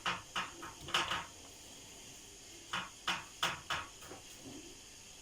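Kitchen handling sounds: quick soft taps and scrapes in two short clusters, near the start and about three seconds in, as raw minced-meat filling is spread into baladi bread and the loaves are handled on a baking tray.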